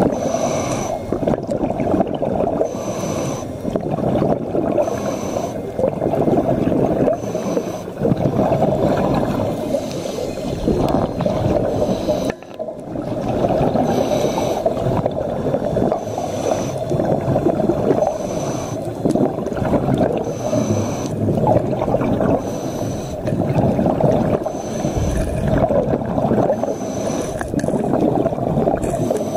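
Scuba diver breathing through a regulator underwater: a short hiss comes back about every two seconds over a steady gurgling rumble of bubbles and water.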